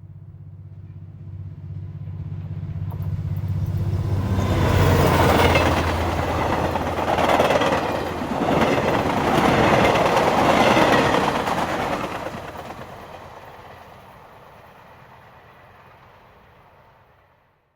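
A large engine-driven vehicle passing by: a low engine hum builds into a loud rushing noise that peaks in the middle and then slowly fades away.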